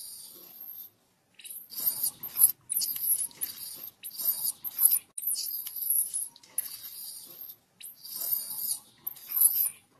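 Baby macaque screaming, a run of high cries broken by short pauses.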